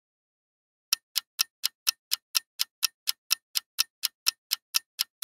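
Clock-tick sound effect for a countdown timer: sharp, evenly spaced ticks about four a second, starting about a second in.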